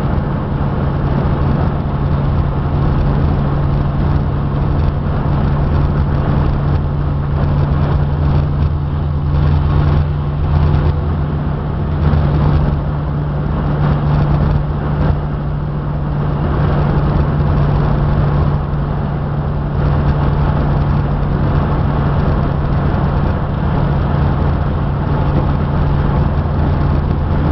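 A vehicle's engine running steadily, a constant low drone with a rushing noise over it.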